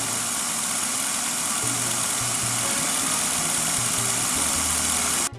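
Electric food processor motor running steadily at speed, whipping egg whites and icing sugar to a foam, then stopping abruptly near the end.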